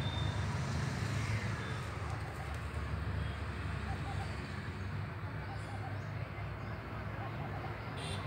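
Steady low outdoor rumble, with faint repeated bird calls over it.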